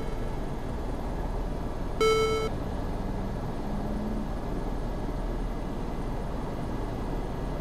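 Steady running noise of the Airbus EC135's Pratt & Whitney PW206B2 turboshaft engines during the start of engine number 2. A short electronic cockpit beep sounds about two seconds in.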